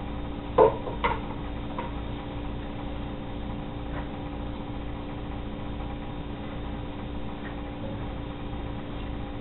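A stainless steel mixing bowl knocks twice against a cooking pot as chopped cabbage is tipped in, the knocks about half a second apart. A steady low hum runs underneath, with a few faint ticks.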